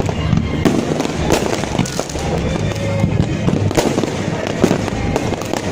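Fireworks bursting in a rapid, irregular barrage of sharp bangs and crackles, with music playing underneath.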